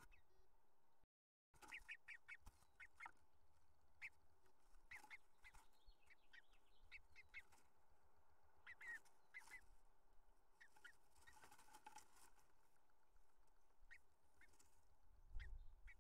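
Faint scratching and rustling of a bluebird moving about in its nest of dry grass and pine needles inside a wooden nest box: a scatter of short clicks and scrapes, with a few louder low bumps near the end. The sound drops out briefly about a second in.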